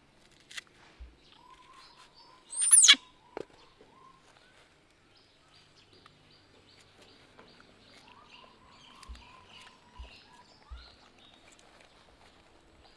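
A short, loud, high-pitched animal call that falls steeply in pitch, about two and a half seconds in, over faint high chirping and a few soft thumps.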